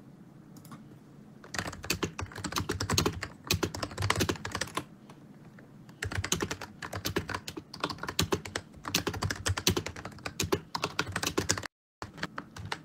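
Rapid typing on a computer keyboard in two runs: one starting about a second and a half in and lasting about three seconds, and a longer one from about six seconds in, broken briefly by a short total dropout near the end.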